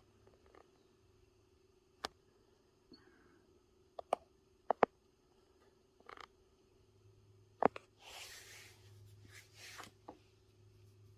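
Scattered sharp clicks and light knocks, then a couple of seconds of rustling about eight seconds in, over a faint steady hum: a TV being handled and worked on during a repair.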